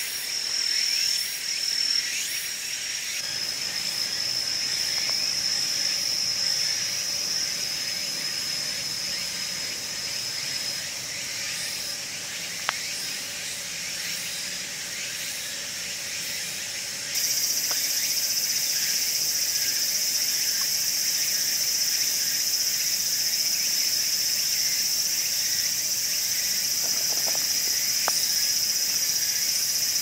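Insects singing: a steady high-pitched chorus that turns suddenly louder and fuller a little past halfway, with a single click a little before that.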